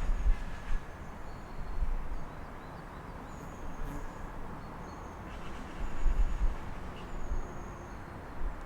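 City street ambience heard through an open apartment window: a steady wash of distant traffic, with short high bird chirps repeating every second or so. Low rumbles rise near the start and again about six seconds in.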